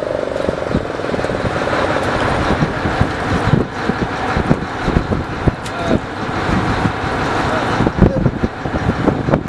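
Fishing boat's engine running steadily, with many irregular knocks and thumps as the crew work a fish-filled net and ropes on the wooden deck.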